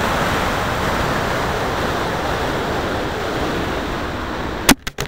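Air rushing loudly past a model rocket's airframe and on-board camera in flight. Near the end it breaks off in a few sharp bangs, the ejection charge firing to separate the rocket and deploy the recovery system, and then the noise falls away.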